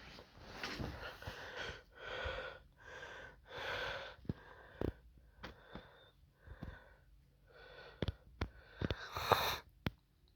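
A person with a runny nose sniffling and breathing hard through the nose, a string of wheezy sniffs and breaths, with a few sharp clicks in the second half.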